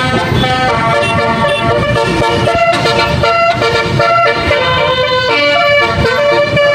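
Multi-tone telolet bus horn playing a tune, its notes stepping quickly from pitch to pitch, several sounding together.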